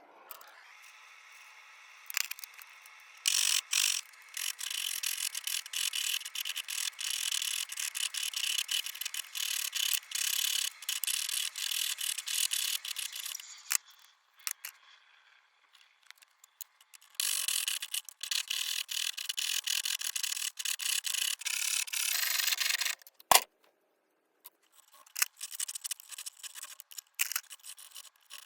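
Rapid rasping strokes of a hand tool working copper sheet, in two long runs with a pause between them, then a sharp click and a few lighter ticks near the end.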